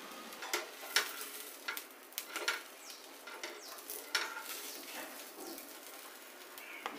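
Metal spatula scraping and clicking against a dosa griddle in a string of short, irregular strokes as an onion dosa is loosened and lifted off, over a faint sizzle from the hot pan.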